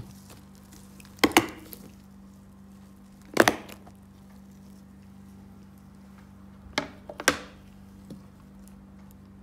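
Latch flaps of a snap-lock plastic food container clicking open one after another: four sharp plastic snaps at uneven intervals, over a faint steady low hum.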